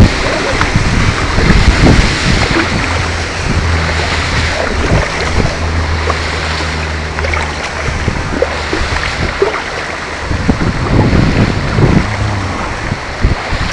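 Water splashing and rushing against the hull of a homemade bamboo kayak under way on a river, with wind buffeting the microphone.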